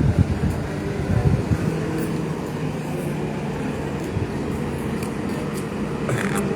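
Heavy vehicle engine running steadily with a low drone, a few light knocks in the first second or so.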